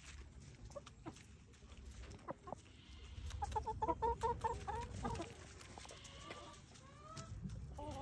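Hens clucking: a quick run of short, repeated clucks about three seconds in, then a couple of rising calls near the end, over a few faint scattered clicks.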